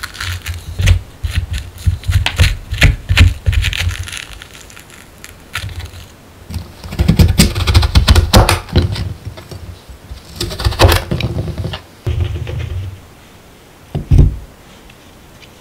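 A wooden spoon scraping seeds and stringy pulp out of a halved kabocha squash, a run of quick clicks and scrapes. Then a kitchen knife cutting through the squash's hard flesh and rind onto a cutting board, in a few loud bursts. Near the end there is a single knock as a squash piece is set down.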